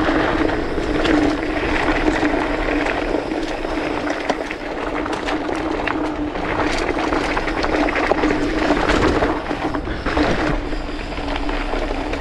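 Polygon Siskiu T8 mountain bike running fast downhill on dirt and rock: a steady roar of knobby tyres on the trail with a constant hum, broken by frequent rattles and knocks from the bike over rough ground.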